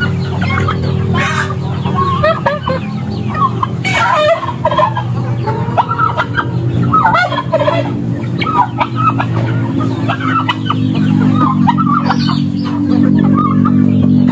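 A backyard flock of chickens clucking and calling continuously in short, overlapping calls, with a few louder calls about a second and a half, four and seven seconds in. Steady background music runs underneath.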